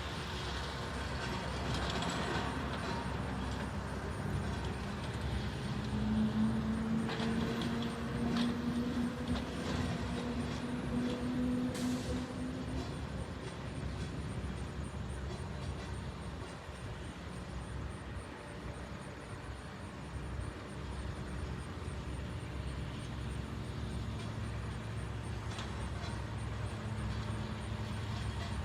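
Engine of construction equipment running, with a low rumble; for several seconds in the middle its tone rises slowly, then it settles back.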